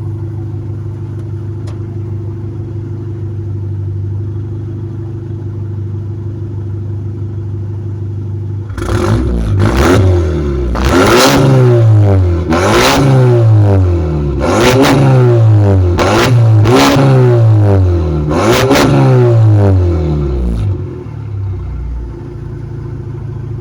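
2021 Hyundai Sonata N Line's turbocharged four-cylinder, with a catless downpipe, mid pipe and straight-piped catback, idling, then revved about six times in quick succession from about a third of the way in. Each rev rises and falls back. The engine then settles back to idle near the end.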